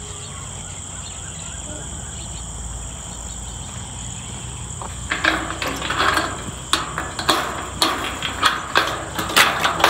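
Crickets chirring in a steady, high-pitched drone. From about halfway, a run of sharp knocks and rattles comes roughly twice a second over the top of it.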